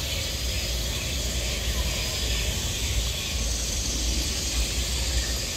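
Steady high-pitched hiss of outdoor ambience, with an uneven low rumble underneath.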